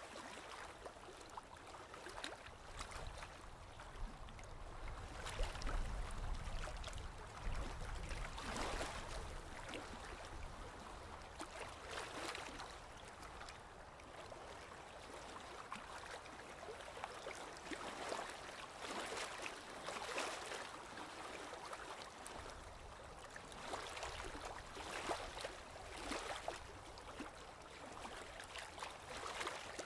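Stream water lapping and trickling, a steady rush with irregular small swells and splashes, over a faint low rumble.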